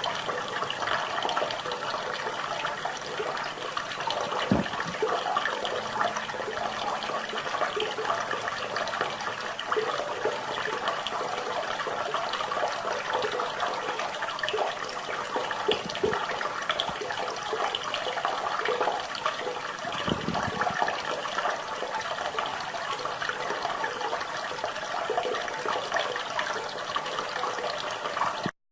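Steady rush of running water. Near the end it cuts out briefly to silence.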